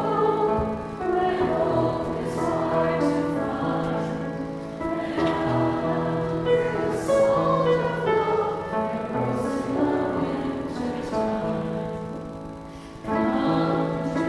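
A congregation singing a hymn together over sustained low accompaniment notes. The singing thins out briefly near the end, then the next line starts.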